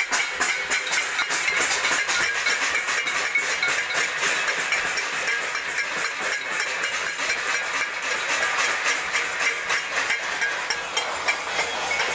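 Steel plates (thalis) being beaten: a continuous, rapid metallic clanging with several strikers at once.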